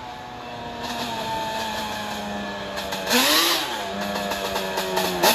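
Yamaha Banshee's twin-cylinder two-stroke engine running as the quad approaches. It holds a steady note, revs up sharply about three seconds in, and rises again near the end.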